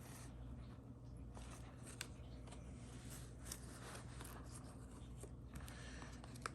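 Faint rubbing and scraping of a watch box being handled, with a few soft taps scattered through, over a steady low hum.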